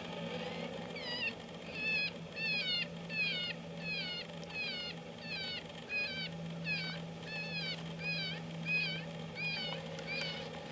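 Electronic predator caller playing a looped animal distress call: a mewing cry that falls in pitch, repeated about one and a half times a second, starting about a second in.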